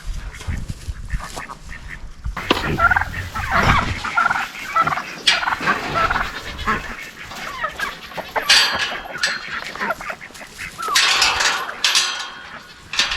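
Farmyard poultry calling in repeated irregular bursts.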